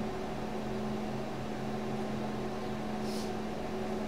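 Room tone: a steady hum with several held low tones over a faint hiss, with a brief soft high hiss about three seconds in.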